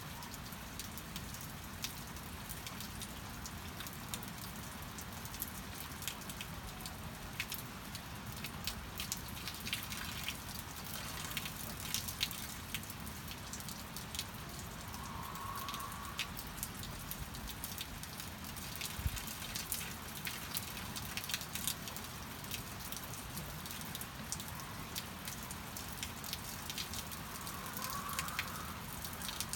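Steady rain falling, with many separate drops ticking close by. Two short faint sounds stand out, about halfway through and near the end.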